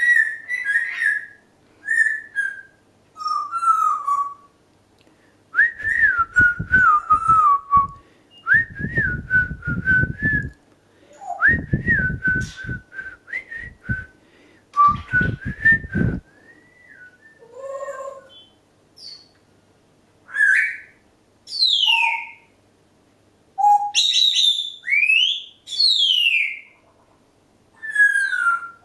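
Congo African grey parrot whistling a long run of short pitched notes, several in the middle carrying a rough, rattling buzz underneath. In the last third the whistles turn sharper, sweeping steeply up and down.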